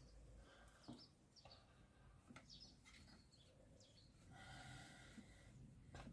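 Near silence with a few faint, short bird chirps scattered through it and a couple of faint clicks.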